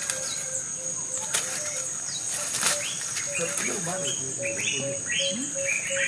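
Yard ambience: a steady high insect drone and birds chirping, busier in the second half, with sharp crackles of dry leaves and twigs as a puppy tugs and chews a stick.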